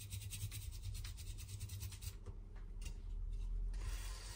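Scrubbing a freshly soldered SIM card connector area on a phone's circuit board clean: rapid repeated rubbing strokes, easing off for a moment in the middle, over a steady low hum.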